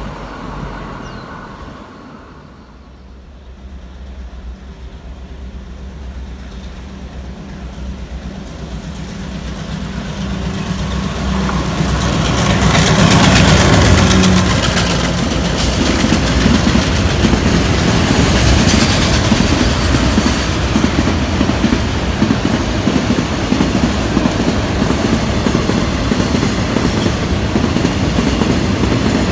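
A passing train fades away at first. Then a KTM Class 29 diesel-electric locomotive approaches with a steady engine drone that grows louder and peaks as it passes, about halfway through. Container wagons follow, rolling by with a continuous clatter of wheels on the rails.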